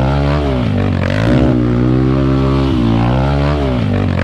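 Off-road dirt bike engine revving under throttle, its pitch dipping and climbing back about three times.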